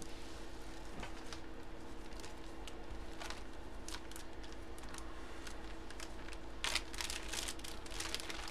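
Light, scattered clicks and rustling of plastic-bagged memorabilia being handled, with a denser crinkle of plastic about seven seconds in, over a steady low electrical hum.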